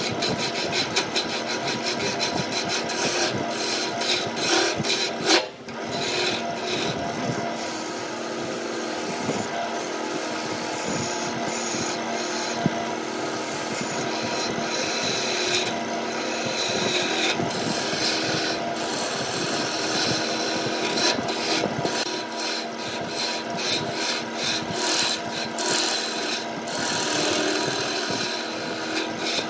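Lathe turning tool cutting into a spinning pale wood blank: a continuous cutting noise with shavings peeling off, over the steady hum of the lathe motor. The cut breaks off briefly about five seconds in, then carries on.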